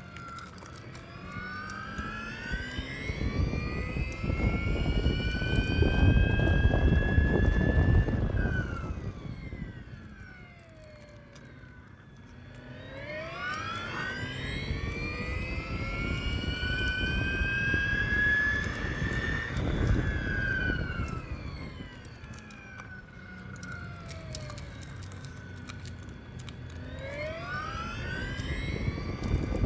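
Piaggio Vespa Elettrica electric scooter's motor whining, the pitch rising as it accelerates and falling as it slows. This happens twice, with a third rise starting near the end, and wind and road noise swell underneath as the speed builds.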